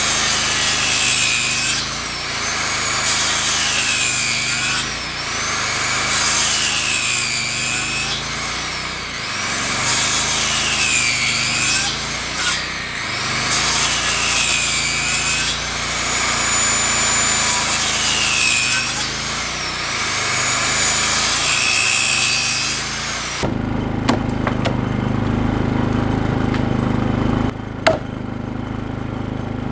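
Hand saw cutting through wood in long, rhythmic back-and-forth strokes, about one every couple of seconds. The sawing stops about three-quarters of the way through, followed by a few sharp knocks.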